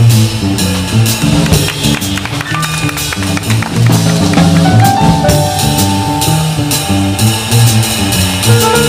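Small jazz combo playing live: a walking upright double bass and a drum kit with cymbals under piano and horn. A horn holds one long note about halfway through.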